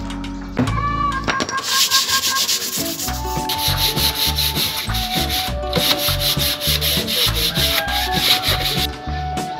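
Sandpaper rubbed by hand over the wooden panels of a computer-table cabinet in quick back-and-forth strokes, a short run about a second and a half in, then a longer run until near the end. The surface is being sanded smooth ahead of varnishing.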